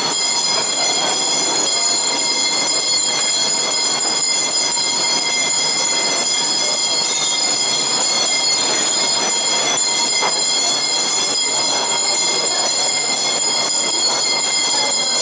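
A steady, high-pitched whine made of several held tones that never change, over a low indistinct background hubbub.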